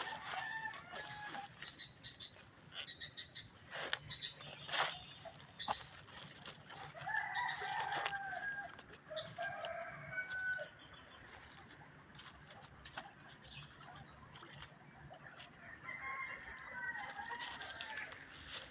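Roosters crowing: several long crows, one right at the start, one about seven seconds in and another near the end, with scattered short high chirps between.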